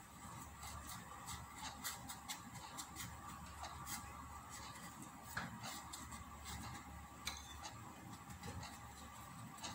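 Metal spoon spreading za'atar paste over dough in a nonstick frying pan: faint, irregular clicks and light scrapes of the spoon against the pan.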